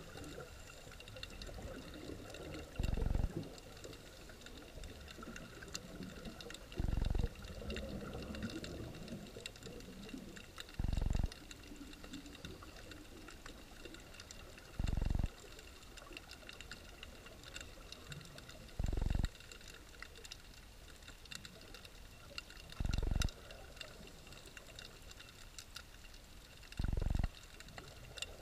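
Underwater sound picked up by a submerged camera: a steady faint crackle of tiny clicks, with a short, loud, low rush or thump about every four seconds.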